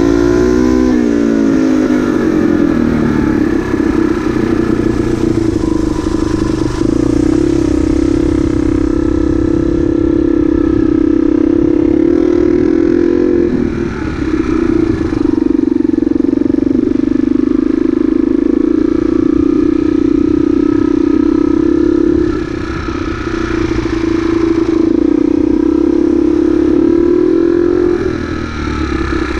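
Motorcycle engine running on board as the bike is ridden, its note falling in the first couple of seconds and then holding fairly steady. The engine dips briefly about halfway through and twice more near the end.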